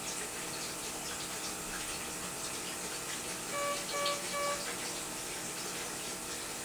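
Three short, evenly spaced electronic beeps from a vital-signs patient monitor about four seconds in, over a steady background hiss.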